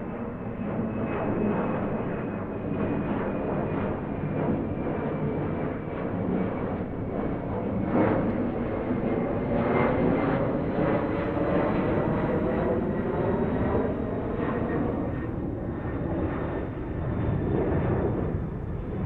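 Propeller airplane flying over, a steady engine drone that swells to its loudest about eight to ten seconds in, its pitch slowly falling as it passes.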